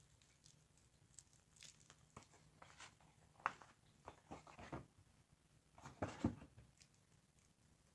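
Faint handling noise: soft rustles and small clicks from a plastic-wrapped steel watch bracelet and its cardboard box. Sharper taps come about three and a half seconds in and again around six seconds in.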